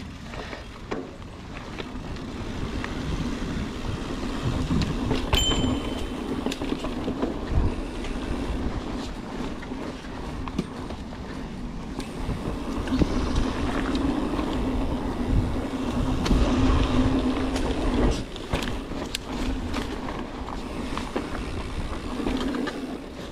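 A mountain bike running down a dirt singletrack: tyres rolling over dirt and roots, with frequent knocks and rattles from the bike over bumps and a steady buzz through much of the ride that breaks off about eighteen seconds in. A brief high squeak sounds about five seconds in.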